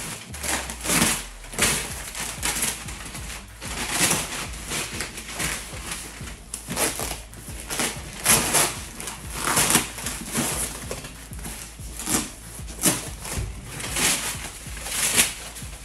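Utility knife slicing through packing tape and cardboard on a shipping box, a long run of short scraping cuts and rips, roughly one to one and a half a second.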